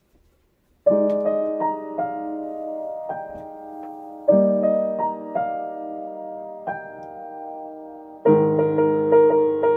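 Solo piano. After about a second of quiet, a chord is struck and left to ring and fade, with new chords about every two and a half seconds. Near the end the playing turns louder and fuller, with a low bass line.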